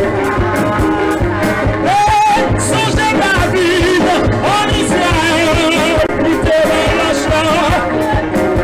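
Church worship music: a man singing into a microphone over a band with a steady drum beat.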